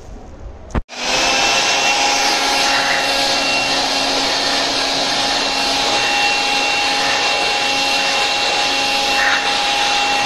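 Electric air blower switched on with a click about a second in, then running steadily: a loud rush of air with a steady whine, blowing a washed brass valve dry.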